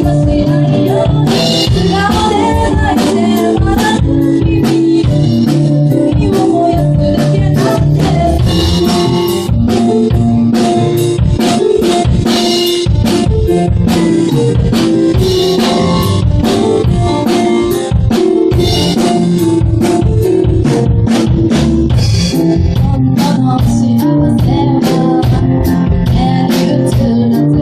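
Band music: a song played with a steady drum-kit beat of kick, snare and rimshot under bass and chords.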